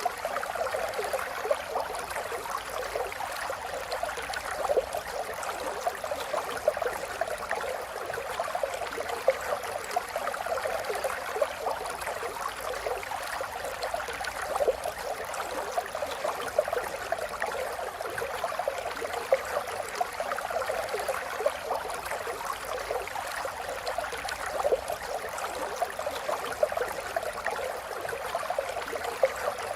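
A river flowing: a steady rush of water with constant small splashes and gurgles over it.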